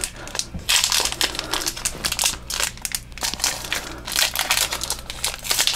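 Crinkling of foil trading-card booster pack wrappers being handled and opened, in dense irregular rustles.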